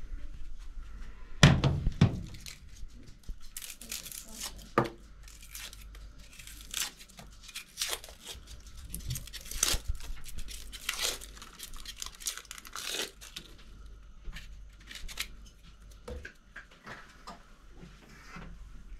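Dry, papery onion skin being peeled and torn off by hand, a run of crackling, tearing rustles. A couple of heavy thumps sound about a second and a half in.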